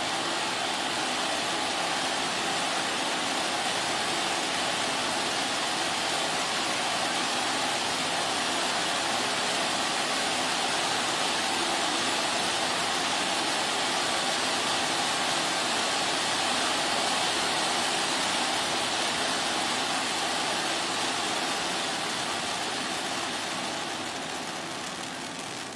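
Stage firework fountain (gerb) spraying sparks with a steady rushing hiss, growing quieter in the last few seconds as the spray dies down.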